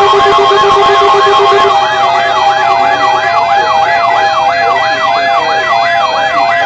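Electronic emergency alert siren tone sweeping up and down about three times a second, over several steady alert tones; a pulsing lower tone under it stops about two seconds in. It marks the start of a severe thunderstorm warning on a weather radio alert.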